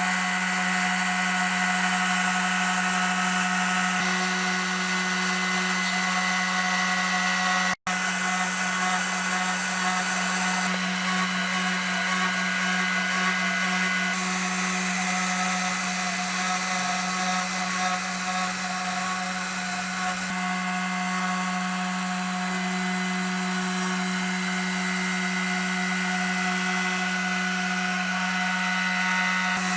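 CNC router spindle running steadily: a constant tone with higher whines and hiss above it. A brief cutout comes a little under eight seconds in, and the pitch mix shifts slightly a few times.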